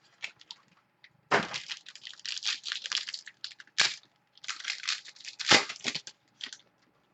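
Trading card packaging being torn open and crinkled: a few stretches of tearing and crumpling wrapper, with a sharp crack a little before four seconds in.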